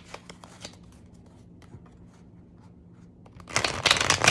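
A deck of tarot cards handled with a few light clicks, then riffle-shuffled against a wooden tabletop about three and a half seconds in: a quick, dense run of card edges flicking together.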